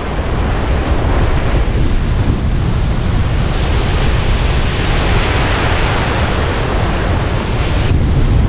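Surf breaking and washing up a sandy beach, with wind buffeting the microphone. A wave's wash swells in the middle.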